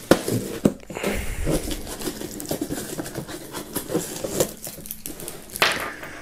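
Cardboard advent calendar door being pried and pushed open by hand and wrapped sweets pulled out: scratchy cardboard rustling and scraping with crinkling wrappers, a few sharp clicks in the first second and a louder scrape near the end.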